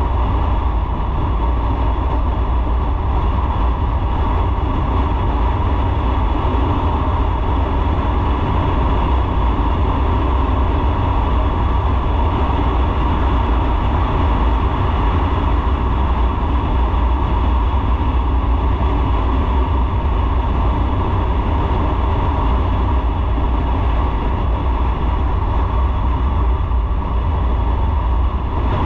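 Motorcycle on the move at a steady speed: a loud, unbroken rush of engine, wind and road noise that holds even throughout.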